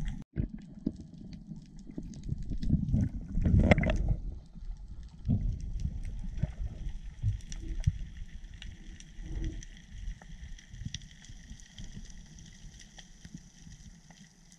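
Underwater sound through a GoPro's waterproof housing: water rushing and thumping against the housing as the diver moves, loudest in the first four seconds, then quieter, with scattered faint crackling clicks.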